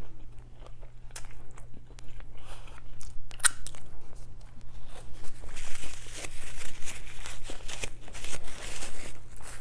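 Close-miked eating: bites and chewing with many short crunchy clicks, getting busier from about halfway through. A low steady hum runs underneath.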